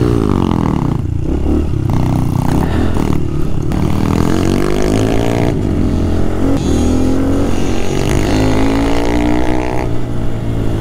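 Small dirt bike engine running under way, its pitch rising and falling again and again as the throttle is opened and eased off and gears change.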